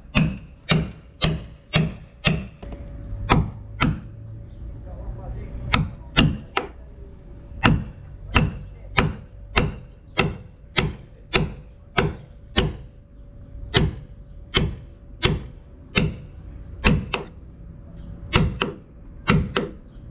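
Hammer striking a steel caulking iron in a steady rhythm of sharp metallic taps, about two a second with a few brief pauses, driving cotton caulking into a seam of a wooden boat's hull. A faint steady hum runs underneath.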